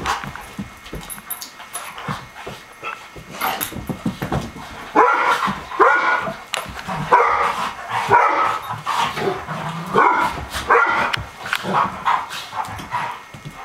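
Dogs play-fighting. Scuffling knocks at first, then from about five seconds in a quick run of loud barks and yips that stops near the end.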